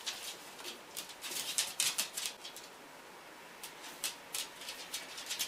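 Dog claws clicking and scrabbling on a hard wooden-look floor as two small dogs play, in quick irregular flurries that are busiest about a second and a half in and again near the end.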